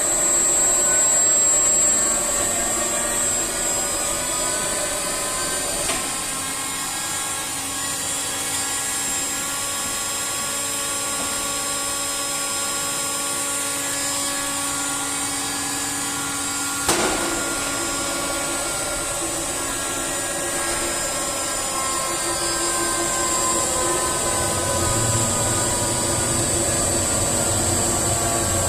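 7.5 kW rotary screw air compressor running steadily: a constant machine noise with a high whine and several steady tones. There is a sharp click about six seconds in and a louder one about seventeen seconds in, where the tones shift.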